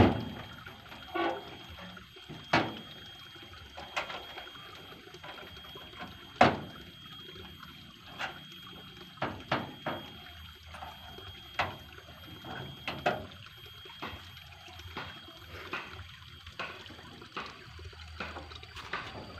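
Water running steadily in a small concrete irrigation channel, with irregular sharp knocks and clicks about once a second from hand tractor parts being handled on a pickup's bed. The loudest knock is about six and a half seconds in.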